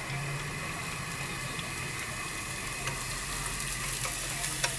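Minced garlic sizzling gently in a little hot oil in a nonstick frying pan, with a few light taps of wooden chopsticks stirring it.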